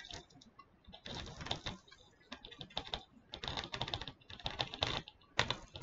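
Quick, light clicks and taps in several short clusters: resin diamond-painting drills being picked up and pressed onto the sticky canvas with a drill pen.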